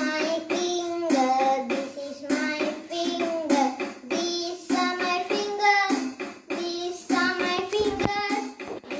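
A child singing a song with a steady drum beat behind it.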